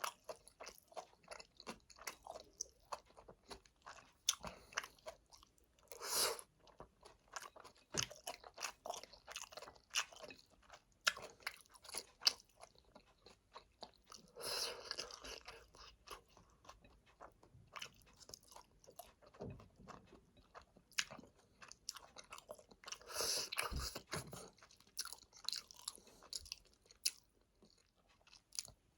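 Close-miked eating sounds of Chapagetti noodles: wet chewing with many small mouth clicks and smacks, and three longer noisy stretches about a fifth of the way in, about halfway, and past three-quarters of the way through.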